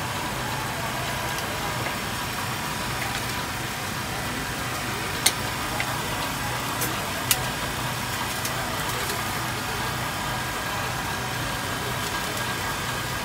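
A steady engine-like hum with an even hiss over it, broken by two sharp clicks about five and seven seconds in.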